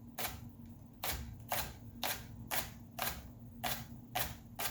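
Kitchen knife chopping green onions on a cutting board: sharp, even knocks about twice a second.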